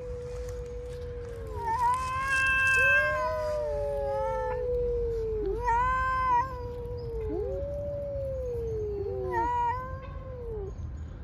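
Two domestic cats facing off and yowling at each other in a threat display before a fight. Their long, wavering, low yowls overlap, and three louder, higher wails come about two, six and nine and a half seconds in.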